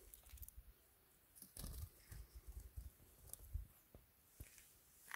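Near silence, with faint scattered clicks and a few short low rumbles.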